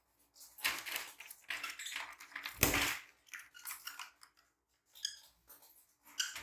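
Fischer's lovebirds giving short, harsh chirps and chatter in quick bursts, the loudest burst about two and a half seconds in.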